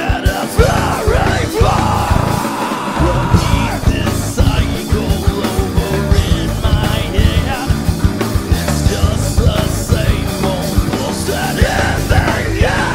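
Live rock band playing loudly: a drum kit, distorted electric guitar and bass guitar under a lead singer who shouts and sings into the microphone.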